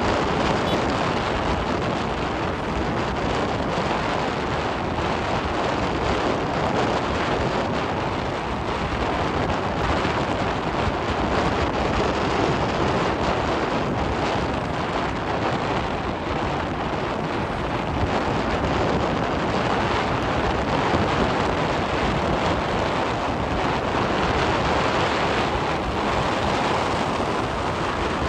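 Steady wind rushing over the microphone, mixed with tyre and road noise from a moving vehicle.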